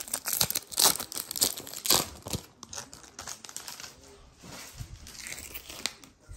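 Plastic wrapper of a Big League baseball card pack being torn open and crinkled in the hands. The crackling is loudest in the first two and a half seconds, then turns to fainter rustling.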